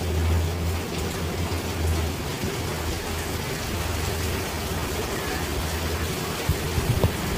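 Steady rain falling, an even hiss of drops, with a low rumble underneath. There are a few short taps near the end.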